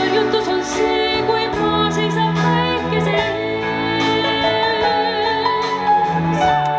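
A woman singing a slow song with vibrato, accompanied by a symphony orchestra with violins.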